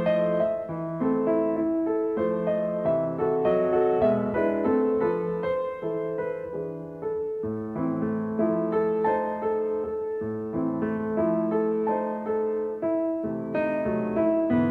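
Background piano music: a flowing melody of many short notes over held lower notes.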